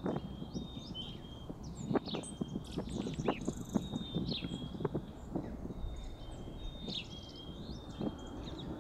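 Woodland songbirds calling: short, thin, high whistled notes, some held level and some sliding, repeated every second or two, over scattered soft crackles that sound like dry leaf litter.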